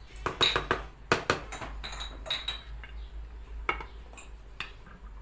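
Dishes and cutlery clinking: a string of sharp clinks with a brief ring, the loudest in the first second and a half, then fainter ones.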